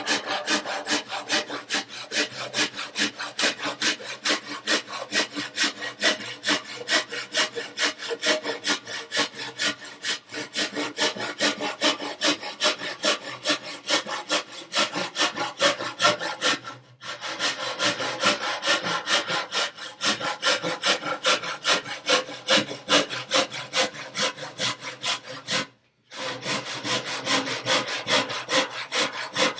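General-purpose handsaw rip-cutting a pine board along the grain, in a steady rhythm of rasping back-and-forth strokes. The sawing stops briefly twice, a little past halfway and again near the end.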